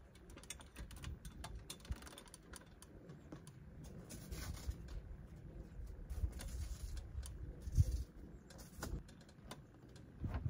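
Wind rumbling on the microphone, with scattered light clicks and taps and one louder knock late on.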